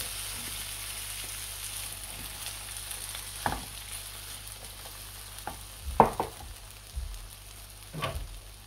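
Sliced raw potatoes sizzling steadily in hot oil in a nonstick frying pan, just after being added. A few short knocks break in, the loudest about six seconds in.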